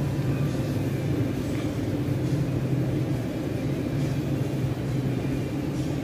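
Shopping cart wheels rolling over a store floor with a steady rattling rumble; the cart's wheels are worn, their rubber coming off.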